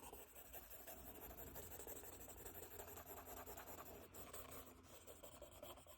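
Faint scratching of a pencil on paper as a drawing is shaded.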